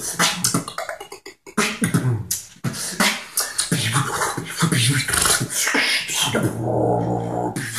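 Human beatboxing: quick mouth-made kick, snare and hi-hat sounds in a steady groove, ending with a low held hummed note under the beat.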